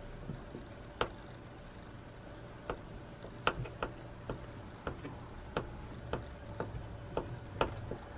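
A kitchen knife cutting a block of butter into cubes on a wooden cutting board. Each stroke ends in a sharp tap of the blade on the wood: about ten taps, irregularly spaced half a second to a second apart.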